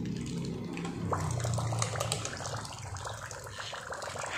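Wind-up swimming bath toys paddling and splashing in a small pool of water, their clockwork motors whirring, while another toy is wound up, with quick clicking from about a second in.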